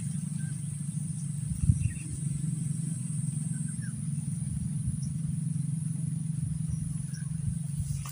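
Steady low mechanical hum, like an engine running at a distance, with a thin steady high whine above it and a brief knock about two seconds in.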